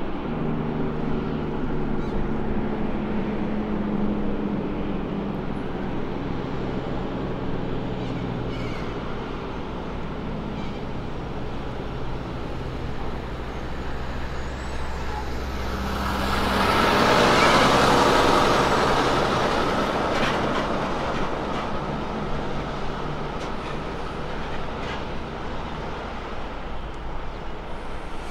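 Kenworth T909 grain truck's diesel engine approaching and slowing. About halfway through a loud rushing hiss swells and fades as it brakes, then it rolls in at low engine speed.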